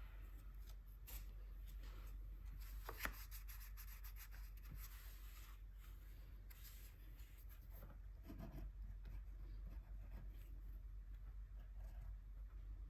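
Faint scratching and rubbing strokes on paper from swatching gouache paint, with one sharp tap about three seconds in, over a low steady hum.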